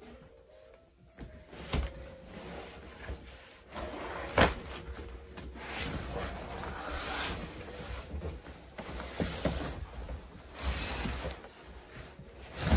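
Cardboard scraping and plastic wrap rustling as a mattress box is pulled off a rolled, plastic-wrapped mattress on a metal bed frame, with a few knocks, the loudest about four seconds in.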